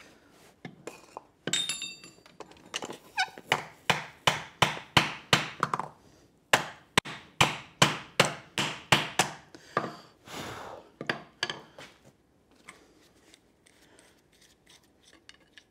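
Hammer blows driving a red-hot steel coffee-scoop bowl down into a wooden block to dish it, about two to three dull strikes a second. The first blows ring briefly, and the strikes die away about twelve seconds in.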